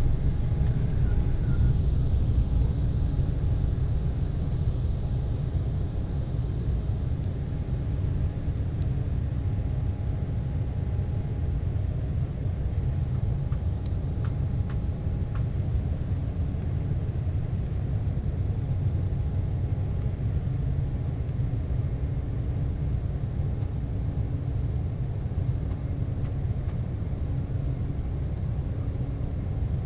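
Embraer 190 airliner cabin noise during takeoff and initial climb: the steady deep rumble of its General Electric CF34 turbofans at takeoff thrust and the airflow past the fuselage, with faint steady engine tones above it. The rumble eases a little a few seconds in and then holds steady.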